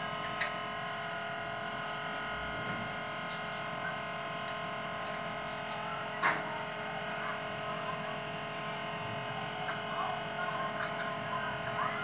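A steady hum of several even tones, with a few sharp clicks and knocks, the loudest about six seconds in, from hands working the ceiling fan's hub and cover.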